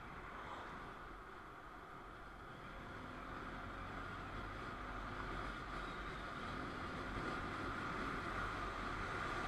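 Motorcycle riding along a road: a low engine hum under steady wind and road noise on the camera microphone, growing gradually louder toward the end.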